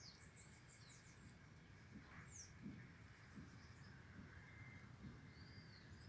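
Faint, scattered high chirps and short calls from a flock of saffron finches feeding on the ground, over low, steady background noise.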